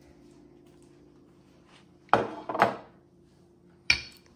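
Dishes being handled and set down: two knocks about half a second apart, then a sharper clink near the end, over a faint steady hum.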